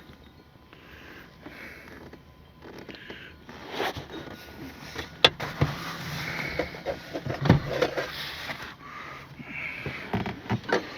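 Scattered clicks, knocks and rustling as hands work a rear seat mount bracket back up under the car's carpet, with a person breathing between them.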